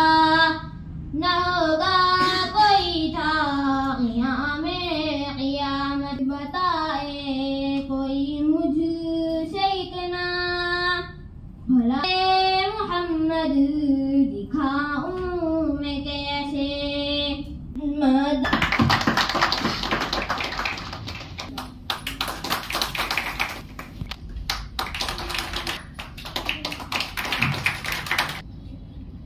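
A single high voice sings a slow melody with long, wavering held notes, and no instruments are heard. About eighteen seconds in an audience breaks into applause, which lasts about ten seconds and stops shortly before the end.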